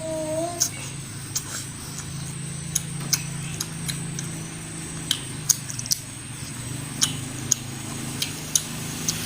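Close-miked eating sounds: chewing with sharp, irregular wet clicks and lip smacks as snakehead fish in soy-sauce broth is eaten by hand, over a steady low hum.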